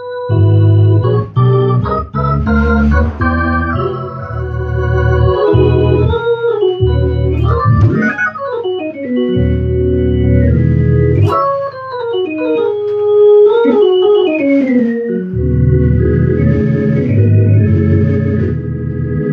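Hammond XK-1 organ played in a gospel 'chops' style: fast runs and full chords over a heavy bass. Quick sweeping runs down and up the keys come around the middle, and the bass drops out briefly a few times.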